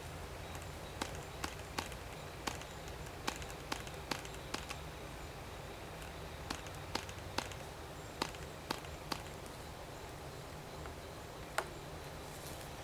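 Sharp clicks in quick runs of three or four, about 0.4 s apart, from the propeller of a Cox Tee Dee .051 model glow engine being flicked over by finger to draw fuel before the glow plug is connected.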